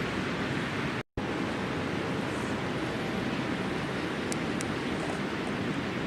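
A steady rushing noise, with a couple of faint sharp crackles from a wood campfire about four seconds in. The sound drops out completely for an instant about a second in.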